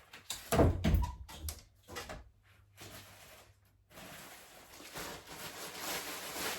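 A loud thump, then several short knocks and clicks, then a steady rustling hiss that builds over the last couple of seconds: household handling noise in a small room.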